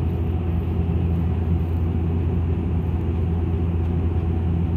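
Steady low drone of an airliner heard from inside the passenger cabin on approach to land: engine and airflow noise, with the landing gear lowered.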